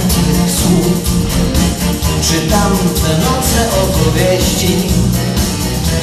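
Loud, upbeat swing-style dance music with a steady beat and a singing voice over it.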